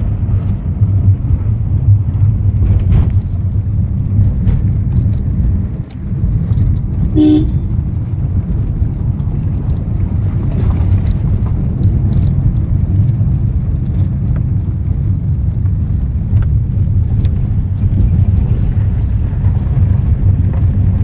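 Vehicle driving on a rough mountain road: steady low engine and road rumble, with light rattling clicks. A short horn toot sounds about seven seconds in.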